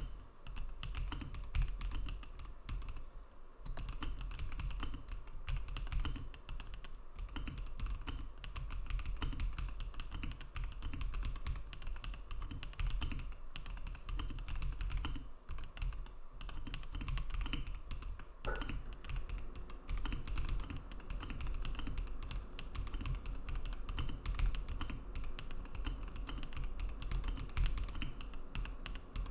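Continuous rapid typing on a KBDCraft Adam mechanical keyboard: lubed S2 linear switches in POM housings, on a POM plate with Poron plate foam and a tape-modded PCB, giving a round keystroke sound. The typing pauses briefly a few seconds in.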